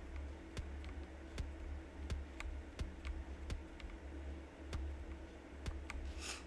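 A brown-switch key on a Kreo Hive mechanical keyboard pressed again and again, giving only faint, soft clicks, one or two a second. The owner finds that the brown switches give almost no sound or tactile feedback.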